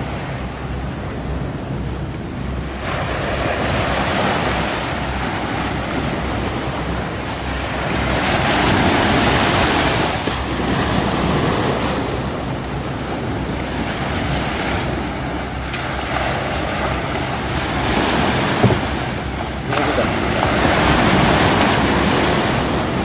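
Sea surf breaking on a sandy beach, a steady rushing that swells and eases every four or five seconds, with wind buffeting the microphone. One brief knock about three-quarters of the way through.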